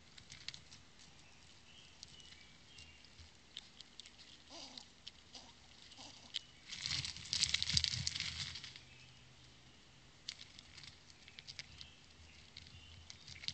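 Gray squirrels and chipmunks feeding on peanuts right at the microphone: scattered light clicks and taps as nuts and paws hit the rock, with a louder, denser scrabbling for about two seconds in the middle.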